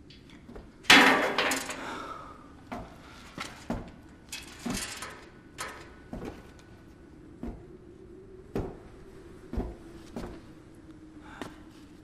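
A loud clang about a second in that rings on for about a second, followed by a string of irregular knocks and clinks, like metal being struck and handled. A faint steady low hum comes in around the middle.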